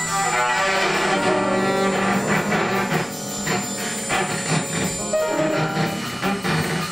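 Free-improvised ensemble music: a bowed cello holding low notes under dense piano clusters, with short sharp strikes scattered through the second half.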